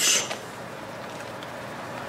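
Steady, even background hiss of room noise, with no distinct event.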